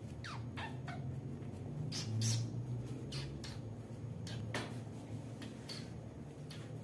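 Wax crayon scribbling on paper: a run of short, irregular scratchy strokes, a few of them gliding down in pitch like a brief squeak, over a steady low hum.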